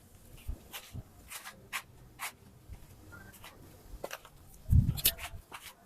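Scattered light clicks and rubbing handling sounds, with one louder dull thump about five seconds in.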